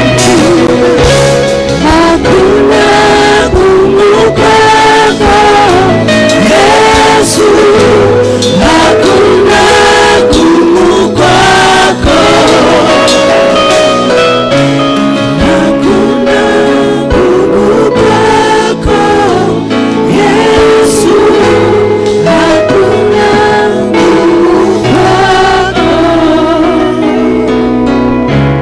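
Gospel worship song sung by a group of voices over a live band, with bass and a steady drum beat.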